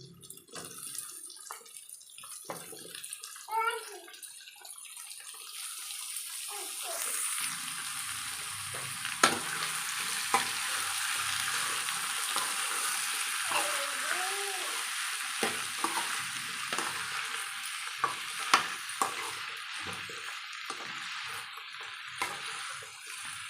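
Chopped ivy gourd, still damp from soaking, sizzling in hot oil in a pan; the hiss swells about six seconds in and then holds steady, with a few sharp knocks of the spatula against the pan as it is stirred.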